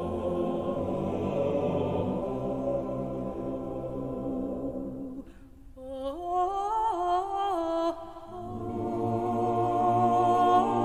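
Slow background music of held, choir-like chords; it thins out briefly about five seconds in, a single melody steps upward for a couple of seconds, then the sustained chords return.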